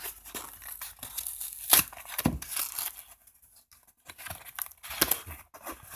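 Packaging being torn open by hand: several irregular rips with some crinkling, the loudest rip about two seconds in and another burst near five seconds.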